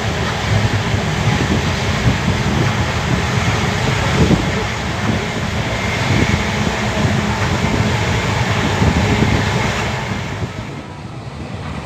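Running noise of a moving passenger train: a steady rumble and rattle of the coach's wheels on the track, easing somewhat about ten seconds in.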